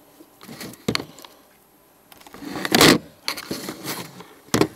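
Handling noises of a cardboard model-aircraft box: scattered knocks and rustles, the loudest a short burst of cardboard scraping just under three seconds in. Near the end there is a sharp knock as the camera slips.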